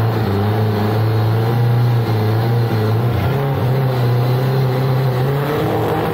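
Chevrolet Chevette drag car's engine running loudly at a steady held speed, its pitch stepping up slightly about three seconds in and shifting again near the end.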